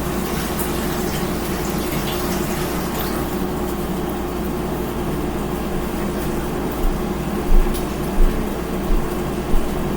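A steady hum and hiss with a constant low tone, like a running appliance or fan. A few soft, low thumps come in the last three seconds.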